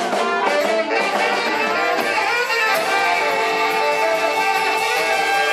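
Live electric blues band playing: harmonica over electric guitar, bass guitar and drums. The notes turn into long, held tones from about three seconds in.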